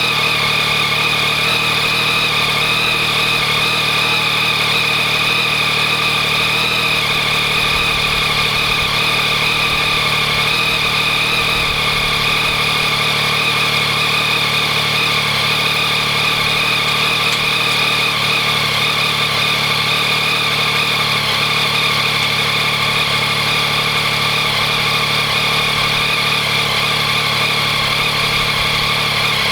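2014 Yamaha MT-09's inline three-cylinder engine idling steadily while warming up after a cold start. It carries the abnormal rattling, ticking noise (kara-kara, kachi-kachi) that the owner is asking about, which persists although the cam chain tensioner has been replaced with Yamaha's updated part.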